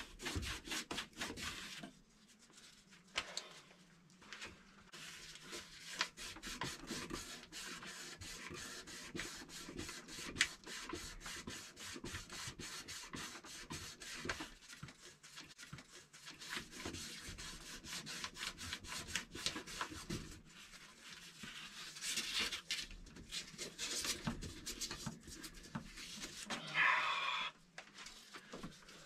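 Copper water pipe being hand-sanded, with quick back-and-forth rubbing strokes that clean the pipe end so the compression fitting seals without leaking. There is a brief louder scrape near the end.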